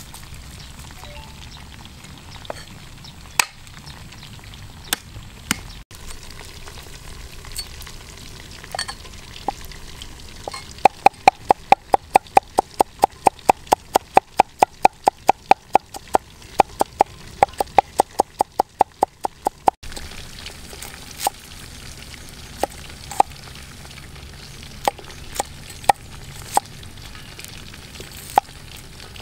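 Meat cleaver chopping garlic and shallots on a wooden chopping board. Scattered single chops, then a fast even run of about five chops a second for some eight seconds from about a third of the way in, then scattered chops again.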